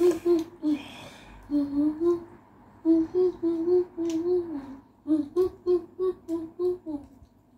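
A person humming a tune in short repeated notes, with a few light clicks mixed in.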